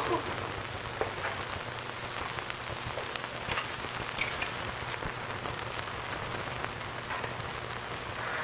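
Steady hiss with scattered faint crackles and a low hum: the surface noise of an aged 1950s film soundtrack.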